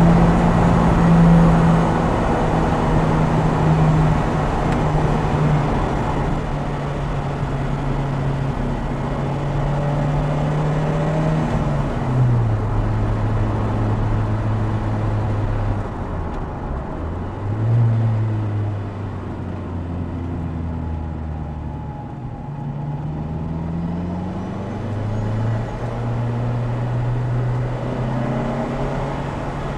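Opel Speedster Turbo's mid-mounted 2.0-litre turbocharged four-cylinder engine running at steady revs, heard from just behind the seats of the open roadster, thickened by a road tunnel at first. About twelve seconds in the pitch drops; it falls and rises again a few times before settling near the end, under steady tyre and wind noise.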